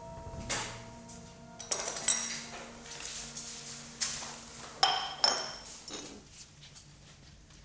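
China cup and dishes clinking: a handful of sharp clinks, the loudest two about five seconds in, over quiet background music with held notes.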